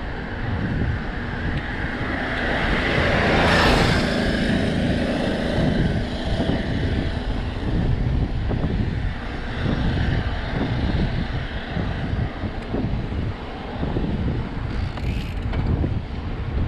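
Wind rushing over the microphone of a mountain bike in motion, with the rumble and rattle of its tyres and frame over a rough dirt trail. About three and a half seconds in the rush swells louder for a moment.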